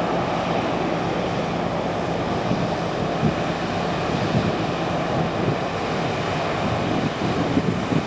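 Combine harvester running steadily in a corn field: a constant engine hum under a wide, even rushing noise.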